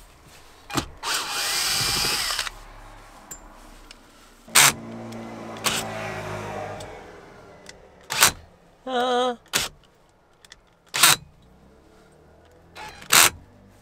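Cordless drill-driver running in short bursts. The longest and loudest run comes about a second in, and a brief wavering whine follows near the middle. Several sharp clicks and knocks come in between, the fittings of a cupboard-door catch being worked.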